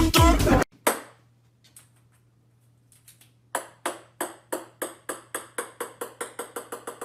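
Background music cuts off within the first second. From about halfway in, a small ball bounces on a wooden floor, its sharp taps coming faster and fainter as the bounces shrink.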